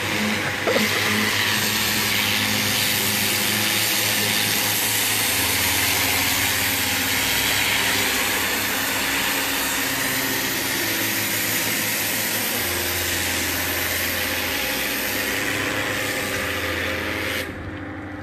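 Pressure washer spraying a high-pressure water jet against a boat's hull, a steady hiss over a low engine hum; the spray cuts off near the end while the hum carries on.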